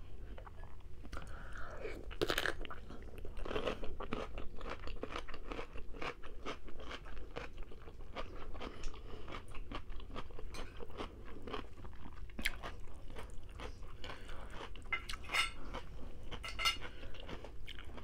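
Close-miked chewing of rotisserie chicken, with many small crunching clicks throughout.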